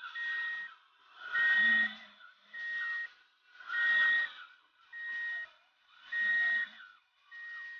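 Electronic reversing beeper, seven steady beeps about 1.2 seconds apart, every other one louder, from an RC dump truck's sound unit.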